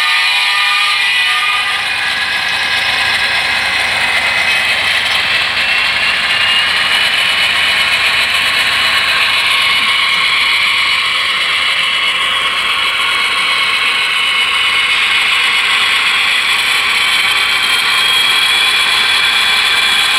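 HO scale model diesel locomotive running along the track: a steady mechanical whir of motor, gears and wheels, with a thin high whine that drifts slowly up in pitch.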